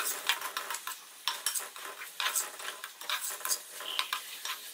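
Metal spoon scraping and knocking against a metal karahi in irregular clicks while masala with potatoes and boiled eggs is stirred and fried, with a faint sizzle underneath.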